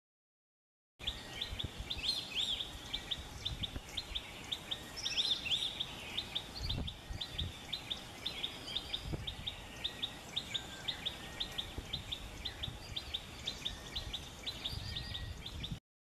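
Nuthatch (rambatan) calling: a fast, steady run of short high chirps, several a second, with a few brighter, longer notes mixed in, over a faint low background rumble. It starts about a second in and cuts off just before the end.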